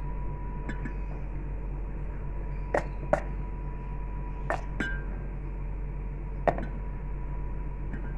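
Green chillies dropped one at a time into a plastic blender jar of yogurt and spices, giving about six short, light clicks and taps against the jar at irregular intervals, over a steady low hum.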